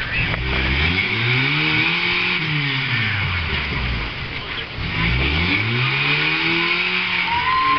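Engine of a caged rock-crawling buggy revving twice under load as it climbs over rocks, each rev rising and then falling in pitch over about three seconds.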